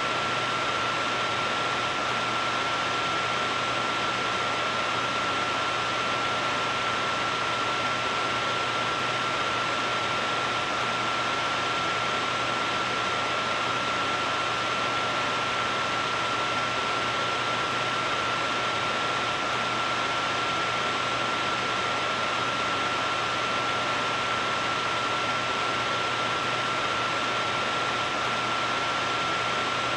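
Steady aircraft jet-engine noise: an even hiss with a constant high whine running through it, unchanging throughout.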